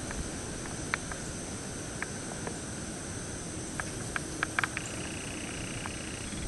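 Steady high drone of insects over a soft hiss of outdoor background, with a scattering of short, sharp clicks, several close together about four and a half seconds in.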